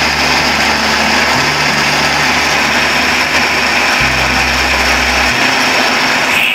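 Electric countertop blender motor running at high speed, whirring steadily as it purees cooked falsa berries and water into a thick pulp.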